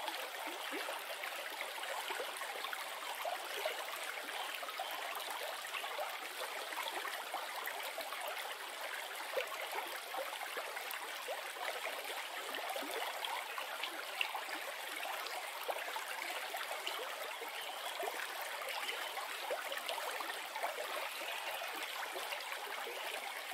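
River water flowing, a steady even rush of water with a few faint ticks.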